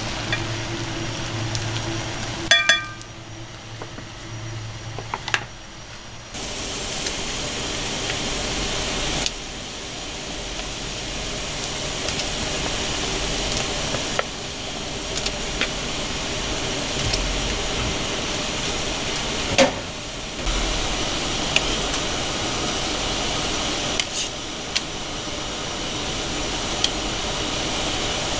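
A pot of water at a rolling boil on a gas stove burner, making a steady bubbling rush, broken by a few sharp clicks and taps of a utensil against the pot.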